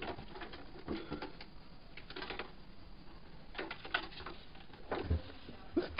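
A kitten's claws scrabbling and scratching on a paper-lined wooden drawer: irregular scratchy taps and rustles.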